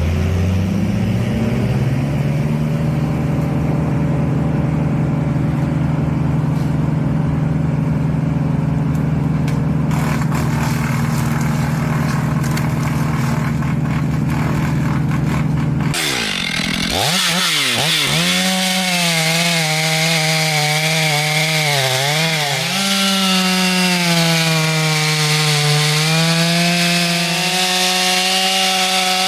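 Two-stroke chainsaw revving up and then running steadily at high speed; after an abrupt change about sixteen seconds in, a chainsaw is heard cutting wood, its pitch dipping and rising as the chain bogs under load and frees again.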